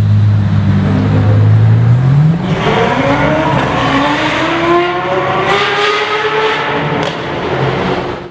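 Straight-piped Ferrari 812 Superfast's naturally aspirated V12 running steadily at low revs, then accelerating away, its note climbing steadily for several seconds as it pulls off.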